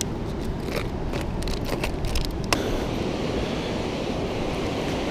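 Footsteps on sand, a few sharp scuffs in the first couple of seconds, over a steady low rumble of wind on the microphone and surf.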